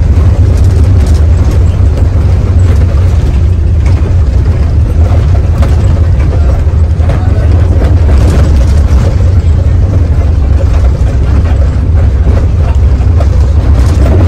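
Mercedes-Benz OH 1521 bus on the move: its diesel engine gives a loud, steady low rumble, mixed with road and body noise.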